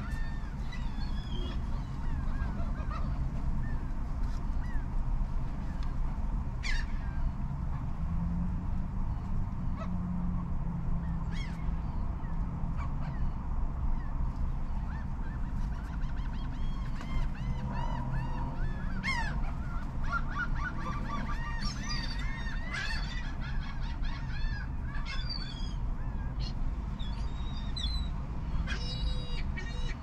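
A flock of laughing gulls calling: many overlapping short, arching cries and laughing call series, growing busier in the second half, over a steady low rumble.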